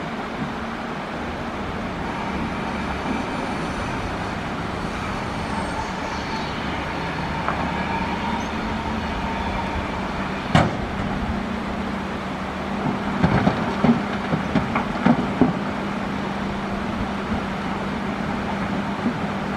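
Excavator's diesel engine running steadily under work, with one sharp knock about halfway through and a run of knocks and clanks a few seconds later as the bucket digs into coral rock.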